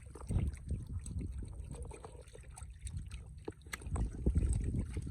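Shallow water splashing and sloshing in uneven strokes, heaviest about half a second in and again near the end, with scattered small drips and clicks.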